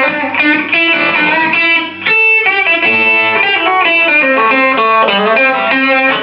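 Stratocaster electric guitar with its treble pickup, through the lead (distortion) channel of a Dirty Dog distortion pedal into a simple amp, playing a melodic line of single distorted notes that change every fraction of a second.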